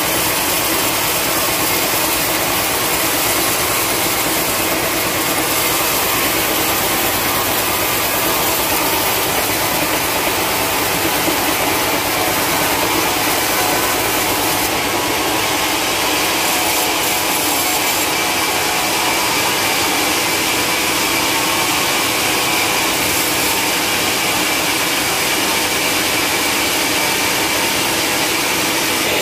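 Band sawmill running, its band blade cutting lengthwise through a long, dry hardwood log, a loud, steady sawing noise.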